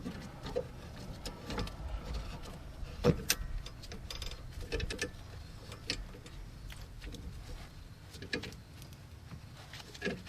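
A C-clamp is worked on a rear brake caliper, squeezing its piston back a little. The sound is scattered metallic clicks and knocks from the clamp and caliper being handled, with the loudest knock about three seconds in.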